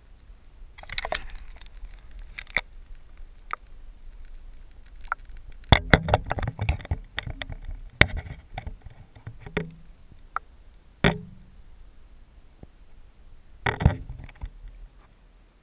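Irregular knocks and clicks as an action camera in its housing is handled and settled into a glass aquarium. There is a dense run of knocks about six seconds in, a single sharp knock about eleven seconds in, and another short cluster near the end.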